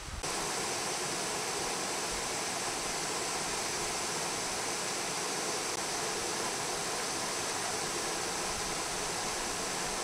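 Creek water rushing over boulders and small cascades: a steady, even rush that cuts in abruptly at the very start and holds constant throughout.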